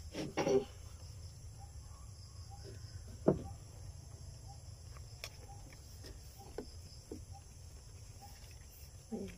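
Plastic bottle and paper sticker label being handled: a short crinkle near the start, a sharp tap about three seconds in, and small clicks as the bottle is turned. Over a steady, high insect drone.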